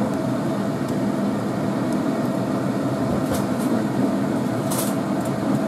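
Steady hum and rush of a large pot of water at a rolling boil on an electric stove, with a couple of faint light clicks about three and five seconds in.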